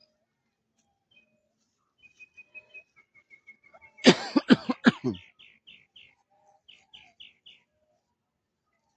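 Birds calling: a quick run of high, evenly spaced notes, then four loud calls in a row about four seconds in, followed by a string of short high chirps.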